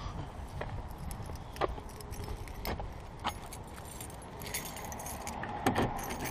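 A bunch of car keys jangling in hand in a run of small scattered clicks, with a denser cluster of sharper clicks near the end as the keys reach the car door.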